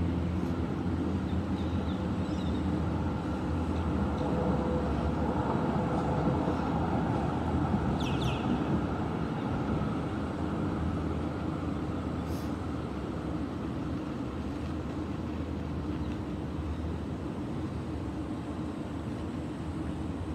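Steady low hum and rumble of outdoor urban background noise, with a brief high chirp about eight seconds in.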